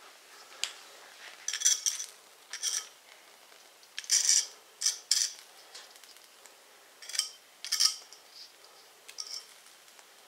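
A folding knife's blade scraping and clinking on concrete in about ten short, irregular strokes as it pushes burning fatwood shavings together.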